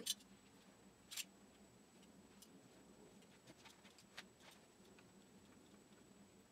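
Near silence: room tone with a few faint clicks, the clearest about a second in.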